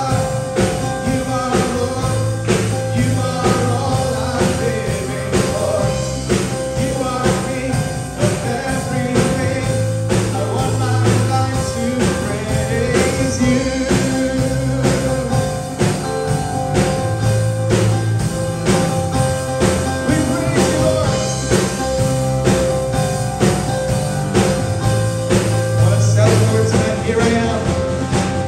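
Praise and worship band music with a steady drum beat and sustained bass notes.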